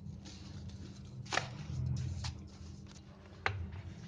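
A spoon stirring grated carrot with sugar and ghee in a bowl, with three light knocks of the spoon against the bowl.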